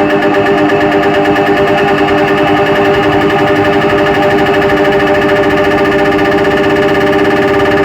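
DJ sound system playing a loud, sustained synthesizer drone that pulses rapidly and evenly, with a buzzing edge.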